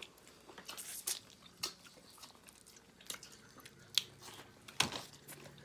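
Eating boiled crab: scattered small cracks and crunches of shell with chewing, the sharpest cracks about four and five seconds in.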